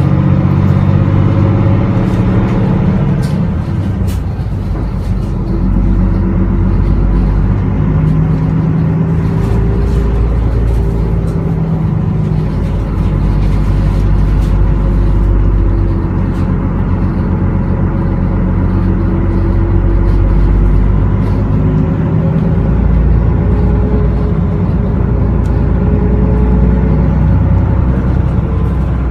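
Isuzu Erga Mio bus's 6HK1 inline-six turbo-diesel engine heard from the rear seats inside the cabin, working under load on an uphill climb. Its note rises and falls repeatedly over a deep, steady rumble.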